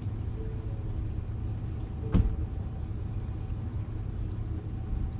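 Pickup truck engine idling steadily with a low rumble. A single sharp knock about two seconds in.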